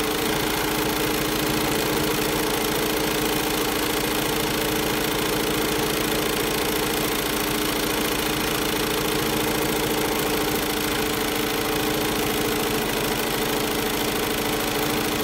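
Bernina 790 sewing machine running steadily at full speed, stitching free-motion quilting; an even, continuous hum without pauses.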